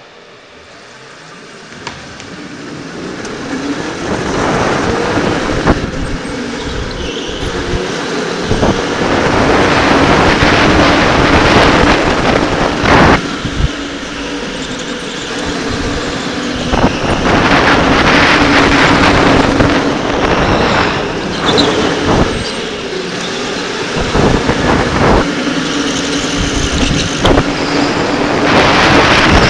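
Electric go-kart pulling away and lapping a track, heard from the driver's helmet: a steady motor whine under a loud rushing noise. It builds over the first several seconds, then eases and surges again twice.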